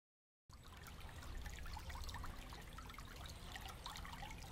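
Water trickling steadily over a low rumble, starting about half a second in after a moment of dead silence.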